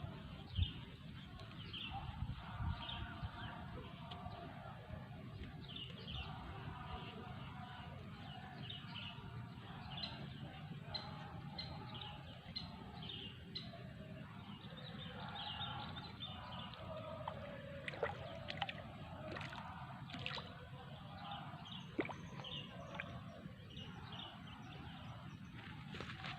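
Wind rumbling steadily on the microphone beside open water, with birds giving short high chirps again and again throughout. A few sharp clicks come late on.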